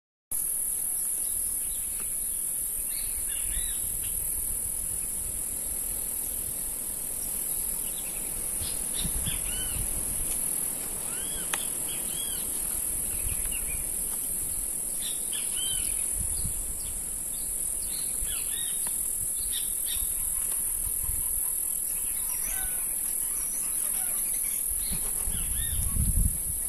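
A steady, loud, high-pitched drone of insects, with songbirds calling over it in short, scattered chirps. Wind buffets the microphone as a low rumble that grows stronger near the end.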